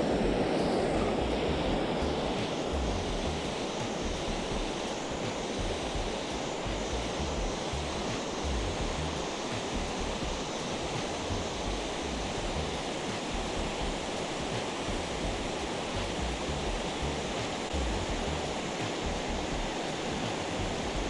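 Steady rushing of water from a river waterfall.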